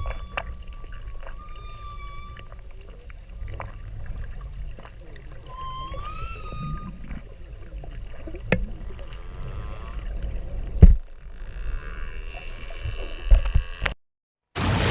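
Whale calls: drawn-out whistle-like tones that hold a steady pitch, a lower moan, and a couple of upward-sweeping calls. Scattered clicks run over a low background hiss, with a loud knock about 11 seconds in. The sound cuts out near the end, then a loud rushing noise starts.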